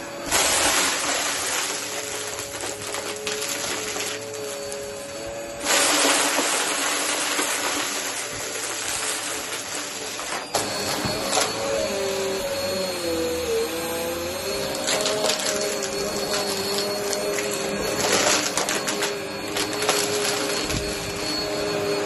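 Upright vacuum cleaner running, with a steady airy rush and a motor hum. The rush swells sharply just after the start and again about six seconds in, and the hum's pitch wavers briefly about halfway through.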